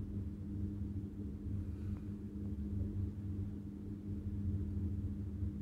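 A steady low hum, unchanging throughout, with a faint light knock about two seconds in.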